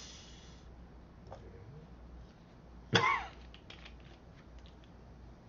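A man coughs once, a single short, sharp cough about three seconds in, followed by a few faint clicks.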